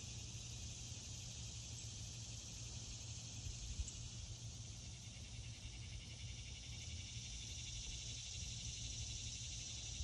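Cicadas droning: a steady, high-pitched buzz that holds without a break, over a low rumble.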